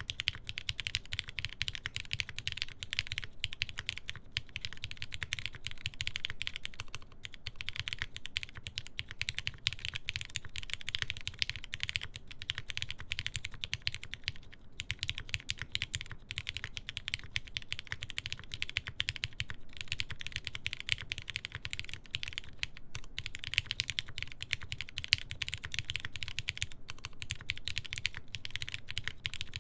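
Continuous fast typing on a TGR Jane v2 CE mechanical keyboard with a full aluminum plate, GMK keycaps and lubed Cherry MX Black linear switches. The keystrokes come in a rapid, dense stream with a few brief pauses.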